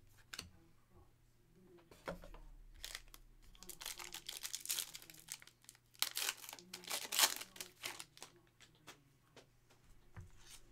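Foil wrapper of a Donruss basketball hobby pack being torn open and crinkled, in two crackling stretches about four and seven seconds in, with a few light clicks of cards being handled.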